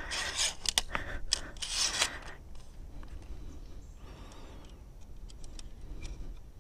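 A small recreational pistol crossbow being handled and cocked. There is scraping and rubbing with several sharp clicks in the first two seconds or so, then faint handling noise.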